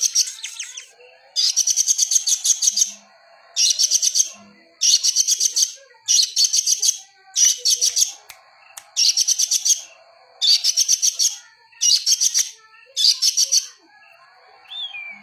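A songbird repeating a fast trilled call, short bursts of rapid high notes about once a second. A faint steady high-pitched whine runs underneath.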